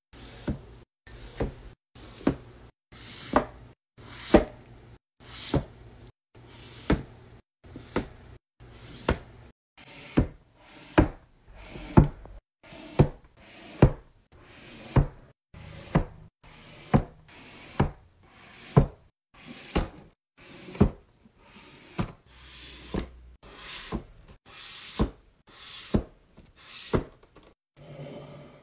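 Sharp knocks in a steady, even rhythm, about two a second, as books are set down on a shelf one after another.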